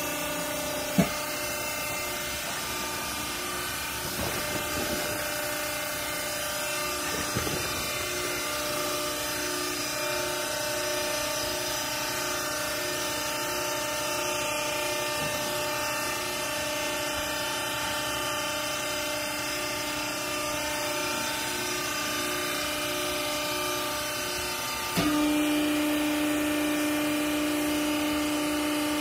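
Horizontal rag baler's hydraulic power unit running with a steady machine hum, with a sharp click about a second in. Near the end the hum steps up, louder and with a stronger tone.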